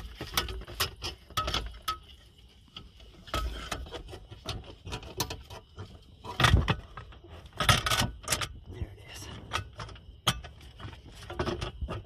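Handling noise of a car's engine control unit being worked back into its metal mounting bracket under the dashboard: an irregular string of clicks, knocks and metallic clinks. The two loudest knocks come about six and a half and seven and a half seconds in.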